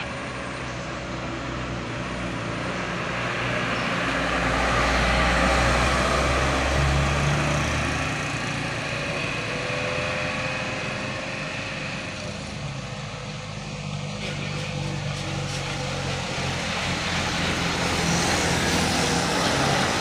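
Trucks driving past on the road: engine drone and tyre noise swelling as each one goes by, loudest about five seconds in and again near the end.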